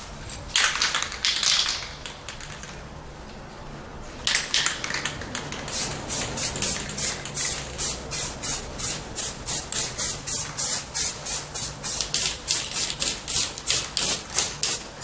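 Aerosol spray can of clear gloss lacquer spraying: a short burst about half a second in, then from about four seconds in a hiss that turns into quick, even puffs, about three a second.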